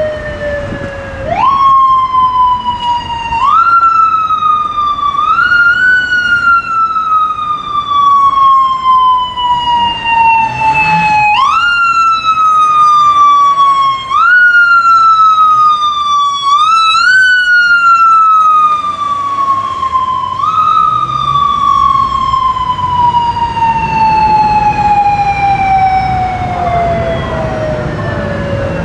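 Police motorcycle siren wailing, re-triggered about nine times. Each time the pitch jumps up sharply and slides slowly down: the early sweeps come about every two seconds, the later ones fall for longer, and the last slides down for about eight seconds. It is a police siren urging a car to pull over.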